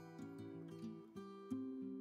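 Quiet background music of plucked acoustic guitar notes.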